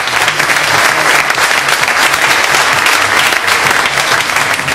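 Audience applauding: a steady, dense patter of many hands clapping at once.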